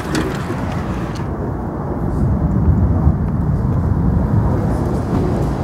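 Storm wind buffeting the microphone: a loud, low rumble that swells a little about halfway through.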